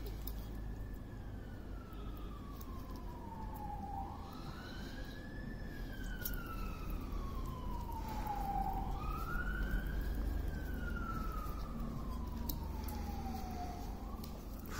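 A siren wailing: a single tone that rises quickly and then falls slowly, about three times, each cycle roughly four to five seconds long.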